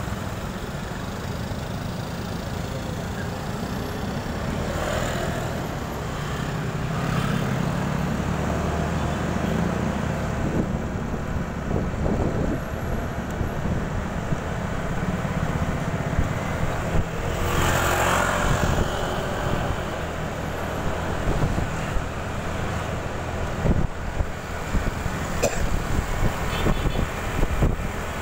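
Motorcycle riding in city traffic: its engine running with a steady low rumble under road and traffic noise, swelling louder for a couple of seconds past the middle.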